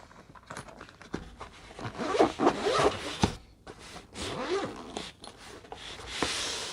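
Zipper on a massage gun carrying case being pulled, in several pulls, as the case is opened.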